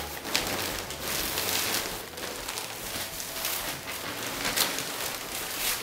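Plastic sheeting and brown paper floor covering crinkling and rustling as they are gathered up and rolled into a bundle, a dense run of sharp crackles.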